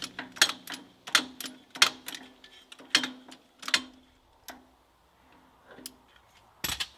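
Sharp metallic clinks and knocks from hand tools working on the tractor's front end, irregular and quick at first, then only a few more, with a louder knock near the end.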